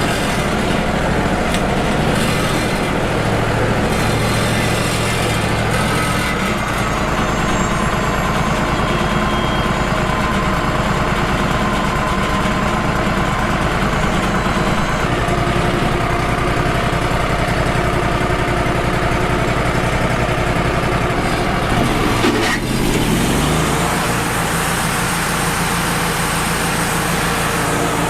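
Wood-Mizer LT35 HD portable band sawmill running steadily, its engine driving the band saw, with a brief dip and rise in pitch about 22 seconds in.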